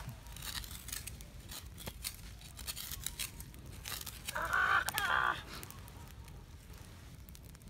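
Machete blade chopping and shaving a wooden stick: a string of sharp knocks and cuts. About four and a half seconds in, a short pitched call lasting about a second is the loudest sound.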